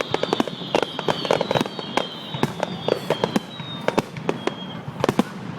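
Fireworks going off in rapid succession: a dense run of sharp cracks and pops, with a high whistle that slowly falls in pitch and fades out about four seconds in.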